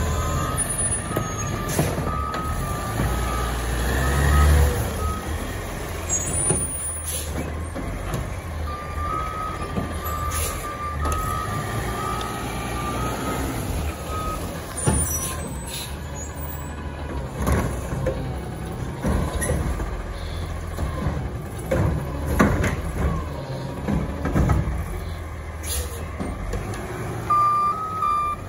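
Automated side-loader garbage truck's diesel engine running, revving up briefly about four seconds in, with a backup alarm beeping at times and several short air-brake hisses.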